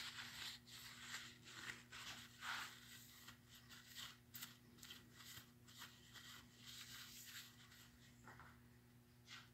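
Faint, irregular scratching and rubbing from hand work on the crankshaft nose, over a low steady hum.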